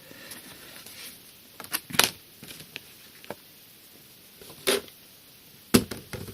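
Trading-card packaging being handled: a few scattered taps, clicks and rustles, the sharpest about two seconds in and again near the end.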